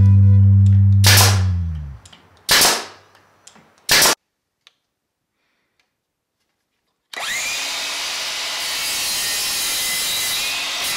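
Nail gun firing single shots into a plywood panel, three or four in all, the first over background music that stops about two seconds in. About seven seconds in, a sliding miter saw starts with a brief rising whine and runs steadily as it cuts through a 1x2 pine trim board.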